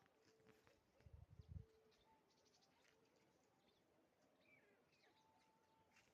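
Near silence with faint bird calls: a few short chirps and held whistled notes. A brief low rumble of knocks comes about a second in.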